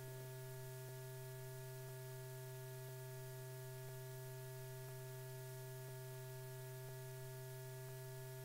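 Faint, steady electrical hum on an old film soundtrack: a low mains-type drone with a few thin steady tones above it and faint clicks about once a second.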